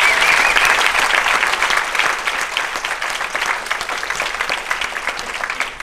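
Audience applauding: many hands clapping, fading gradually and thinning to scattered claps near the end.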